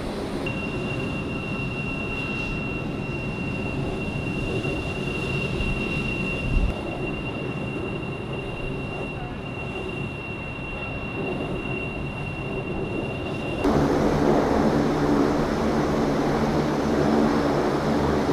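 Jet aircraft engines running at idle: a steady rumble with a thin high whine. There is a single thump about seven seconds in, and near fourteen seconds the sound cuts suddenly to a louder, deeper rumble.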